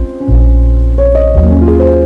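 Soft instrumental background music: sustained bell-like chords over a deep bass note, with the notes changing about once a second.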